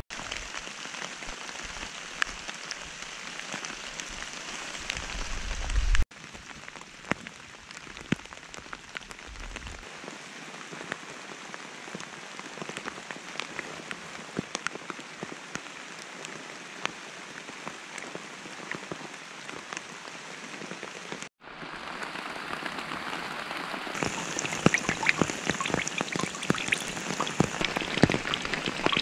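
Steady rain falling, a dense patter of drops. Late on it grows louder and busier as rainwater runs off a poncho and splashes into a metal pan.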